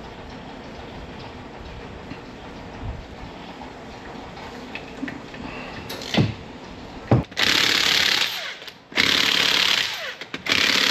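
Impact wrench spinning lug nuts onto a wheel in three bursts of about a second each, beginning about seven seconds in, after two sharp knocks.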